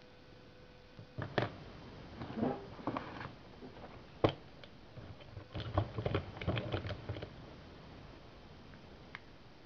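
Handling noise: irregular clicks, taps and short rustling, with the sharpest click about four seconds in, then quiet after about seven and a half seconds.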